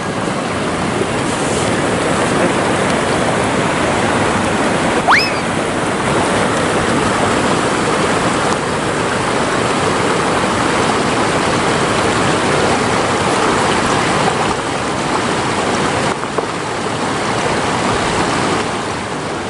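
River water flowing steadily, an even wash of water noise. About five seconds in, a single short rising whistle.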